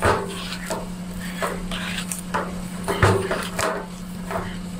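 Corn masa dough being kneaded by hand in a plastic bowl: irregular pressing and squelching strokes, with the bowl knocking against a stainless steel table, about two a second. The strokes are loudest at the start and about three seconds in.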